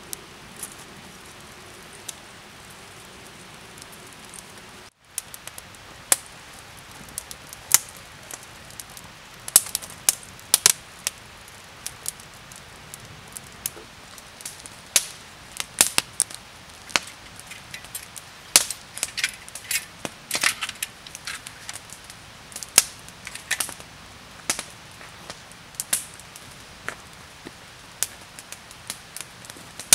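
A wood fire crackling, with frequent sharp, irregular pops and snaps over a low steady hiss. The sound drops out for a moment about five seconds in, before the popping starts.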